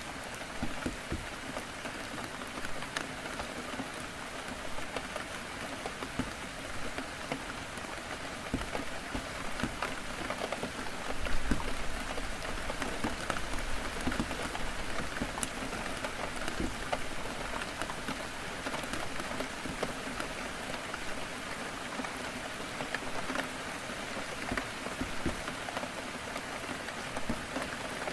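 Heavy rain pattering on a window: a steady hiss with many small drop taps, and a brief low swell about eleven seconds in.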